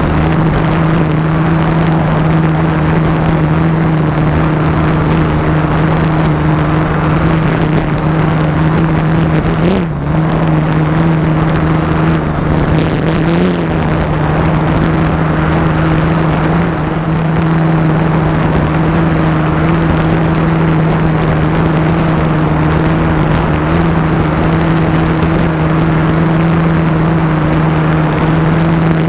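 SimToo Dragonfly camera drone's motors and propellers, heard close from the drone's own onboard microphone: a loud, steady hum over a rushing noise, its pitch wavering briefly about ten seconds in and again a few seconds later.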